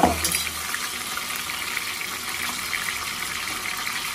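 Cornflour-coated corn kernels deep-frying in hot oil in a steel pot: a steady sizzling hiss with fine crackles. A brief knock sounds at the very start.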